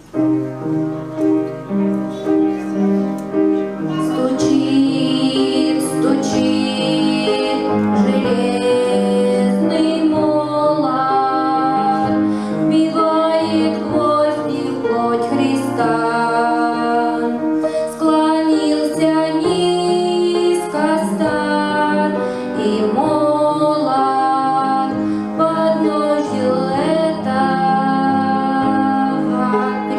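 A church song: a keyboard plays a short introduction of chords, then a woman's voice comes in about four seconds in and sings over piano accompaniment.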